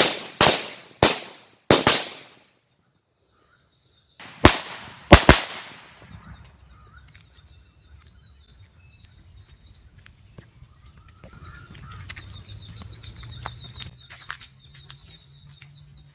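Firecrackers going off close by: four sharp bangs in quick succession, a short pause, then three more bangs. After that there is only a faint low rumble and a faint steady high tone.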